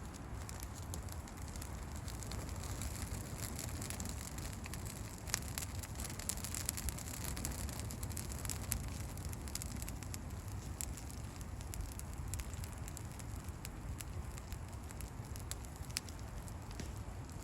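Campfire crackling steadily, with irregular sharp pops and snaps over a low rumble of burning.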